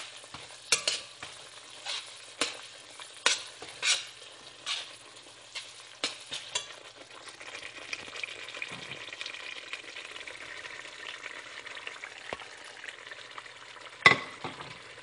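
Semolina frying in hot oil in a stainless steel pot, sizzling, while a slotted metal spoon stirs it with sharp scrapes and knocks against the pot about once or twice a second. After about seven seconds the scraping stops and a steady sizzle carries on, with one loud knock of metal near the end.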